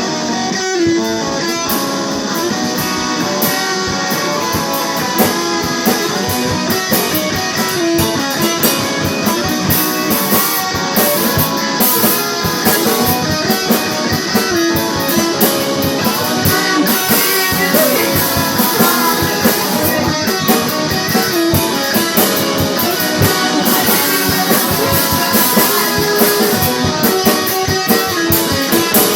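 Rock band playing the song's instrumental opening: guitar over a drum kit keeping a steady beat.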